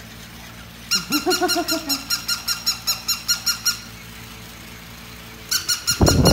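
Battery-operated toy dog playing its electronic sound: a rapid string of high beeps, about seven a second, from about a second in until nearly four seconds, starting up again near the end. A lower wavering cry sounds briefly just after the first beeps begin.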